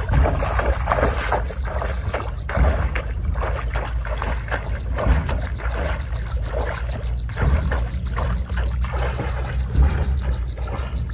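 Pond water sloshing and splashing in irregular bursts as a person wades through it, over a steady low rumble of wind on the microphone.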